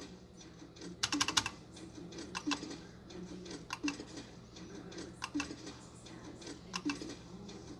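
Slot machine buttons clicking as they are pressed: a quick run of clicks about a second in, then single clicks every second or so. Faint short electronic tones from the machine sound underneath.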